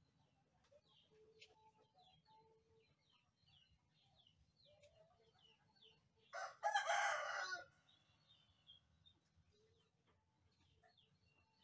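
A rooster crows once, loud and lasting about a second and a half, a little past the middle, over faint, repeated chirping of small birds.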